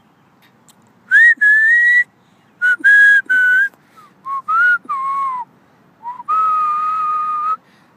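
A person whistling a tune: a string of clear notes, some held and some sliding, starting about a second in and ending on a long held note.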